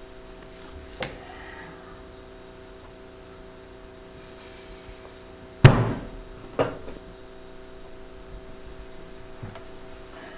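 A faint click about a second in, then a loud, heavy thud a little past the middle, followed about a second later by a lighter knock, over a steady electrical hum.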